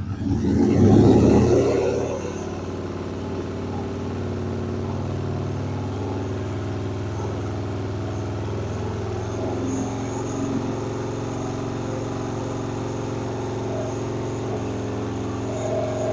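Excelsior-Henderson Super X V-twin engine revved up sharply at the start, then held at a steady raised speed. It is being held at about 2,500 to 3,000 rpm so the oil settles for an accurate dipstick reading.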